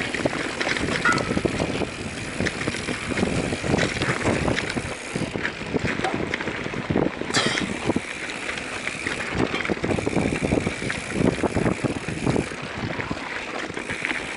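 Mountain bike riding downhill on a rough dirt trail: steady tyre noise with irregular knocks and rattles as the bike bounces over bumps and roots.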